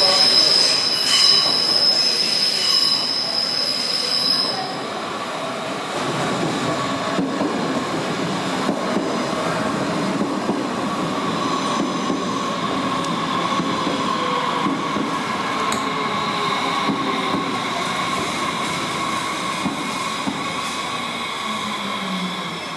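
S-Bahn electric multiple unit arriving at a platform. A high wheel squeal sounds in the first few seconds, then the train rumbles in slowly, with a steady whine and drive tones that fall gradually as it brakes to a stop.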